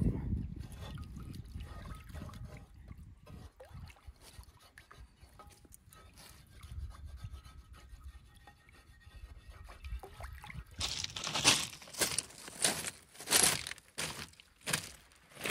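A frying pan being scraped and rubbed clean with a utensil in rock-pool water, a faint scraping with a little water. About eleven seconds in, the scraping gives way to footsteps crunching on beach pebbles, roughly one every two-thirds of a second; these steps are the loudest sound.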